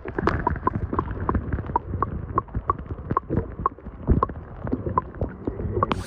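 Muffled underwater sound from a camera held just below a lake's surface: water sloshing with a low rumble and an irregular run of small clicks and knocks, several a second. Near the end the sound opens up to the brighter open air as the camera comes out of the water.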